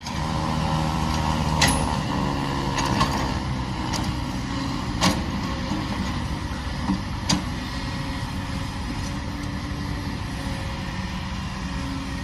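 Kobelco SK200 hydraulic excavator's diesel engine running steadily, with several sharp knocks over the first seven seconds or so.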